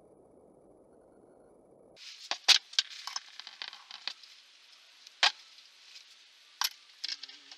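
Faint room hiss, then a series of sharp metallic clicks and clinks as parts of a disassembled Fasco electric motor are handled and set down on a workbench, over a light hiss.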